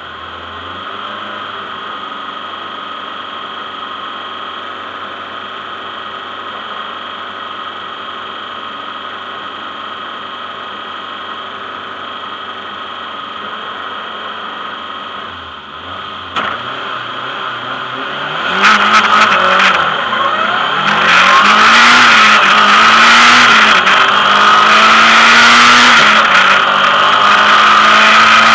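Lancia Delta rally car's four-cylinder engine idling steadily at the start line, heard from inside the cabin. About two-thirds of the way in it revs up and the car launches hard, the engine pitch climbing and dropping through several quick gear changes under full throttle.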